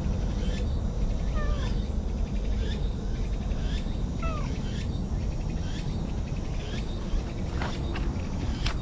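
A cat meowing: two short, high mews that fall in pitch, about a second and a half and four seconds in, over a steady low rumble.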